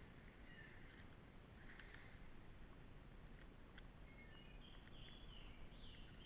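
Faint rasping strokes of a chainsaw file in a PFERD CS-X filing guide, which files the cutters and depth gauges together, drawn across the saw chain a few times in the first couple of seconds, over near silence. Faint bird chirps come near the end.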